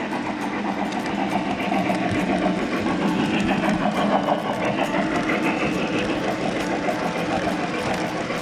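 Model steam locomotive and its passenger cars running past on the rails: a steady motor whir with wheel noise, loudest as the locomotive goes by about four seconds in.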